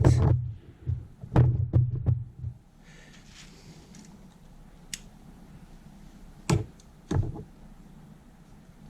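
Scattered knocks and clicks of tools and metal parts being handled during work on a motorcycle chain: a few knocks in the first two seconds, a sharp click about five seconds in, and two more knocks near the end.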